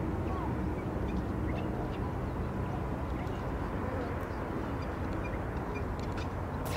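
Steady low rumble of outdoor airport ambience, with birds chirping faintly.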